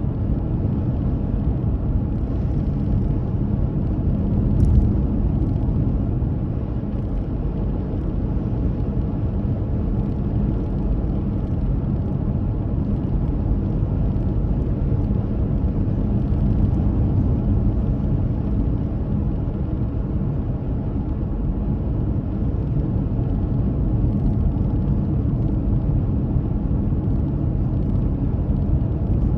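Car driving on the road: a steady low rumble of engine and tyre noise with a faint even hum. A brief click about five seconds in.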